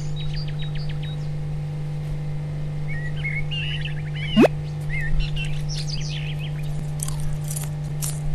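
Small birds chirping and trilling over a steady low hum, with one short rising whistle-like glide about four and a half seconds in.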